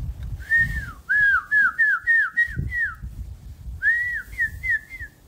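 A person whistling two quick runs of short falling notes, about seven and then about four, in the way one whistles to call a horse.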